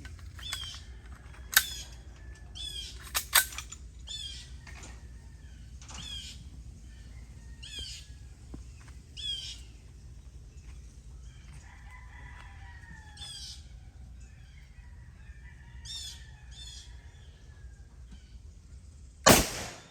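A single very loud gunshot near the end, most likely the first shot from a Desert Eagle .50 AE pistol. Three sharp cracks come earlier, and birds call over and over with short falling chirps throughout.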